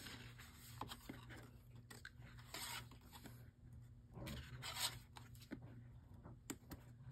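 Card-stock postcards in a folder being handled and flipped by hand, with two brief paper swishes about two and a half and four and a half seconds in, plus a few small taps.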